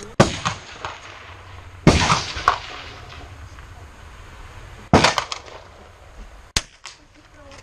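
Four sharp small-calibre rifle shots, spread irregularly, each cracking and ringing briefly.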